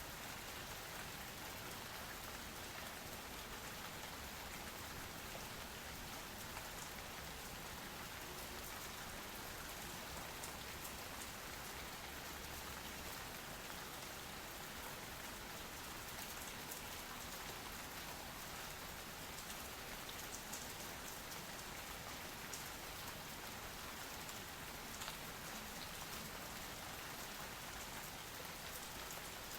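Steady, even rain falling, with the patter of individual drops.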